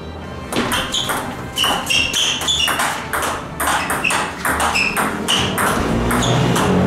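Table tennis rally: the celluloid-type ball clicking back and forth off the rubber bats and the table top, a quick run of short sharp pings.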